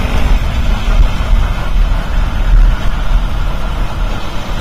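Motorcycle riding at speed, heard from the rider's own bike: a steady mix of engine and wind noise on the microphone.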